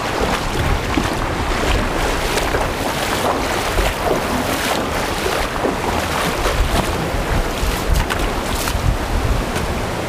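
Rushing creek water with wind buffeting the camera's microphone in a fluctuating low rumble, and scattered short crackles throughout.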